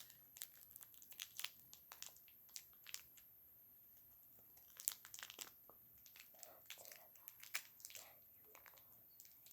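Faint, irregular crinkling and clicking from hands handling mini butter slime tubs and their plastic packaging, in two spells of small crackles.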